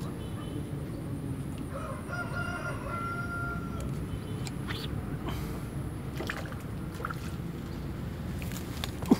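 A rooster crows once, a drawn-out call about two seconds in, over a steady low background rumble. A sharp click comes just before the end.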